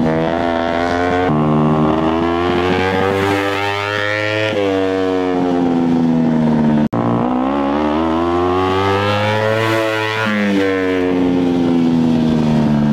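Kawasaki Ninja 250 parallel-twin engine driving a buggy in fourth gear, its pitch sliding slowly down and then jumping back up several times as the throttle changes. A brief cut breaks the sound about seven seconds in.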